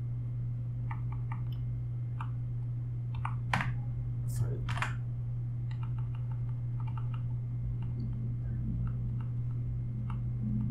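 Computer keyboard keystrokes, scattered single clicks and short runs with a few louder clacks in the middle, as the keys step through a formula's autocomplete list. A steady low hum lies under them.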